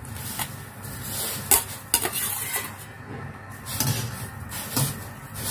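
Stainless steel wok of boiling water bubbling as straw mushrooms are dropped in from a wire spider strainer, with a series of sharp metal clinks of the strainer against the wok.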